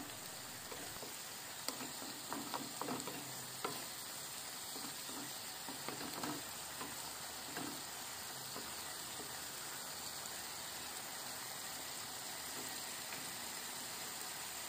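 Grated tomato and garlic sauce sizzling gently in a non-stick frying pan on medium heat, stirred and scraped with a wooden spatula, with soft scrapes and taps in the first half. After that the stirring stops and only a steady quiet sizzle remains.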